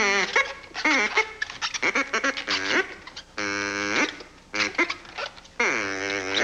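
Latex modelling balloons squeaking as they are twisted into a balloon figure: a run of rubbery squeaks and crackles, with a long held squeal about halfway through and a squeal that dips and rises again near the end.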